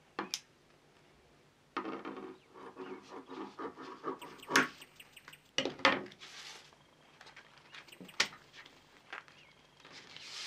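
Kitchen scissors cutting through a thin, leathery sheet of dried plum fruit leather with a crackly rasp, then a few sharp knocks as the scissors are set down on the tabletop. Soft rustling and peeling follow as the cut pieces are lifted and handled.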